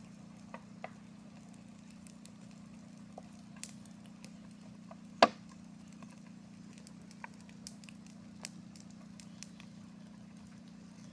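Bottles and rubbish burning in a fire: scattered crackles and sharp pops as the bottles burst in the heat, with one much louder bang about five seconds in.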